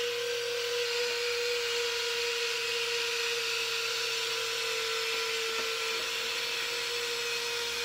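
Electric retractable landing gear of an RC T-50 jet model cycling after the gear switch is flipped: a small motor whine held at one steady pitch.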